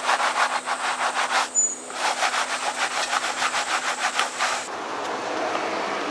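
A car-wash brush scrubbing a wheel in quick back-and-forth strokes, about five a second, with a short break about a second and a half in. The scrubbing stops near the end and gives way to a steady hiss.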